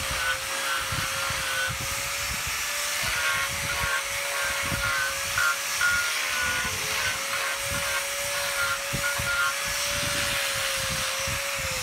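Electric angle grinder fitted with a cylindrical sanding drum, its motor running with a steady whine while the drum sands a turned wooden vase with a scratchy hiss.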